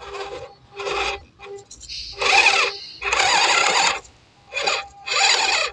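Electric drive motor and gearbox of an MN78 Cherokee RC crawler whining in short bursts as the throttle is pulsed on a climb. There are about five bursts; the longest, about a second, comes a little after the midpoint.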